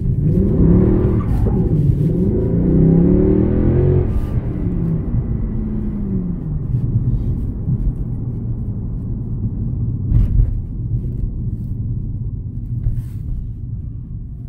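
Mercedes C63 AMG W204's 6.2-litre M156 V8 heard from inside the cabin, revving up and dropping back in pitch during the first four seconds under hard acceleration, then settling into a steadier drone. A short knock about ten seconds in.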